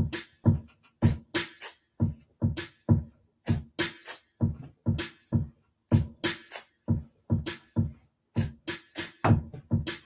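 A looped drum beat played back on a Boss RC-505 MkII loop station: low kick hits and sharp snare hits repeating in a steady pattern.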